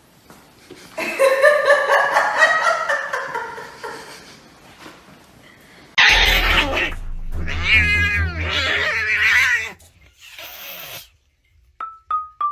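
A cat yowling in a long, wavering wail. About six seconds in, the sound changes abruptly to a louder call whose pitch slides up and down over a low hum.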